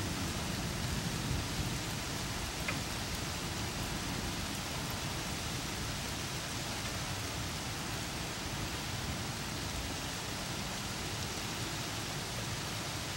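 Steady rain falling on trees, roofs and lawn, with the low rumble of distant thunder dying away in the first couple of seconds.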